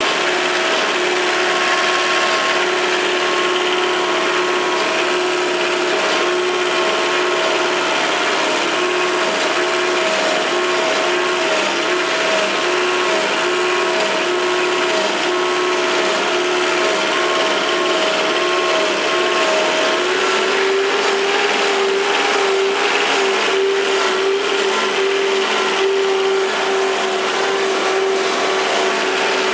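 Bobcat 3023 trencher tractor's small diesel engine and hydraulics running steadily, a loud whine over a rattling mechanical clatter. About two-thirds of the way through the pitch steps up slightly and the higher of the two tones drops out.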